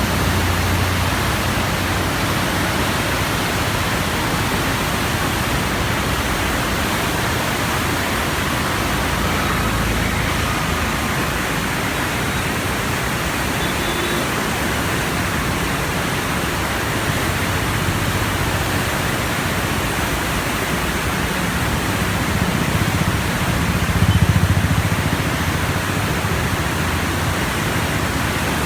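Heavy floodwater rushing steadily through the open flood gates of a river barrage, a loud even rush of water. A brief low rumble swells up once late on.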